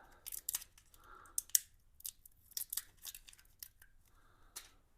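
Irregular sharp clicks and light taps of small hard parts being handled, with faint rustling in between.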